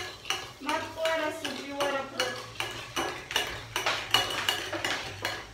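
A spoon clinking and scraping in a mixing bowl as it stirs, about three quick clinks a second, with voices talking over it.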